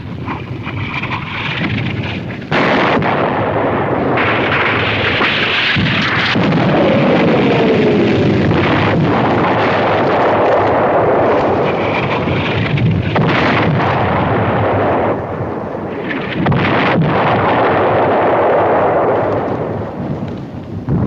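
Artillery barrage in a war-drama soundtrack: a continuous din of shell explosions, with fresh loud blasts every few seconds and a falling whistle about six seconds in.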